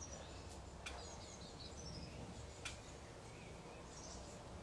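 Quiet outdoor background with faint bird chirps now and then, and two small ticks, about a second in and near three seconds in.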